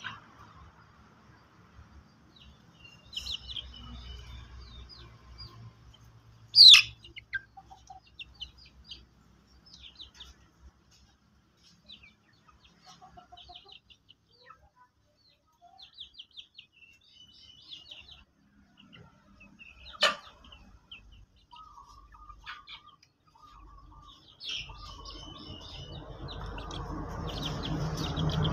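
Chickens chirping: many short, high peeps scattered throughout, with a loud sharp call about seven seconds in and another around twenty seconds. A rustling noise builds over the last few seconds.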